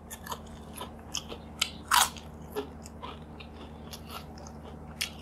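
Potato chips crunching as they are bitten and chewed: a string of irregular crisp crunches, the loudest about two seconds in.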